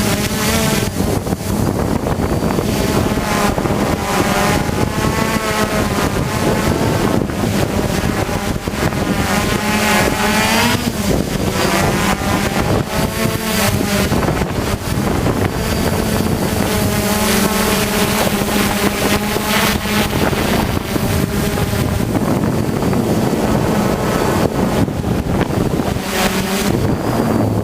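Hexacopter's six electric motors and propellers buzzing in flight, their pitch constantly rising and falling as the rotors speed up and slow down to hold the craft steady in gusty wind. Wind rushes over the microphone throughout.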